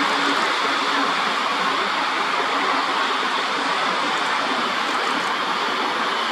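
A steady, even rushing noise with no breaks or separate events.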